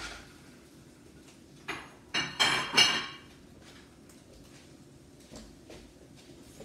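Metal utensil and frying pan clattering as an omelette is turned out of the pan: a quick run of sharp clinks and scrapes, some briefly ringing, about two seconds in, then a few quieter knocks.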